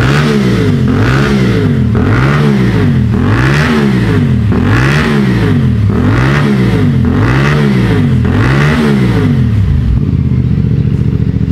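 CF Moto 450MT parallel-twin engine breathing through a ProSpeed SharkBlack aftermarket exhaust with its dB killer fitted, blipped repeatedly to mid revs, about eight rises and falls a little over a second apart, then settling to a steady idle near the end. The note is mellow at these revs.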